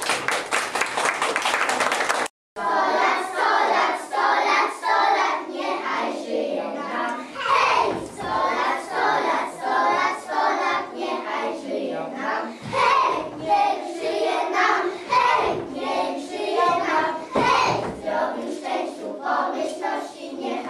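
Audience clapping for about two seconds, cut off abruptly. Then a group of young children singing together.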